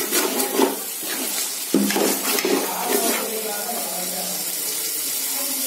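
A metal slotted spoon scrapes and stirs tomato-onion masala frying in oil in an aluminium pot, in a run of strokes. The stirring stops about three seconds in, and the masala goes on sizzling steadily.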